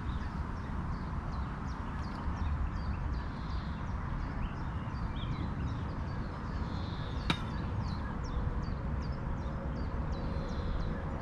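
Small birds chirping repeatedly in short high notes over a steady low rumble, with a single sharp click about seven seconds in.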